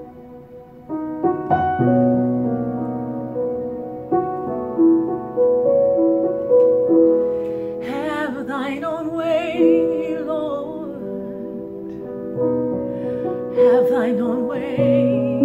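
Slow piano playing sustained, gently changing chords. A woman's voice joins about halfway through, holding long notes with wide vibrato, and comes in again near the end.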